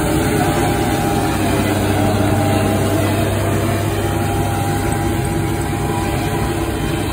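Engine of a small tracked snow-clearing vehicle running steadily as it moves over the piste, a steady low drone.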